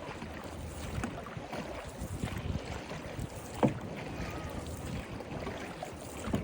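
Water rushing and sloshing along a moving dragon boat, with wind buffeting the microphone and small splashes, and one sharp knock about three and a half seconds in.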